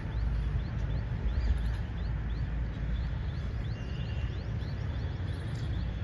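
Outdoor ambience: a steady low rumble with a bird chirping repeatedly over it, about two or three short rising chirps a second.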